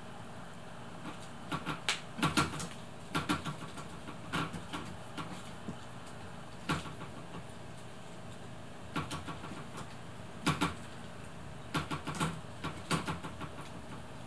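Irregular bursts of light clicks and taps as a thin toy stick is knocked about by a cat pawing at it, over a steady low hum.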